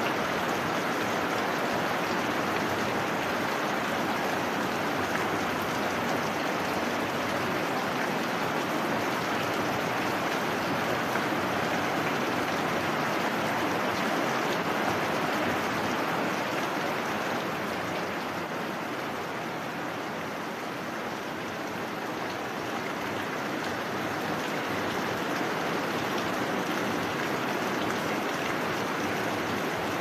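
Heavy rain falling steadily, a dense even hiss that eases slightly for a few seconds past the middle.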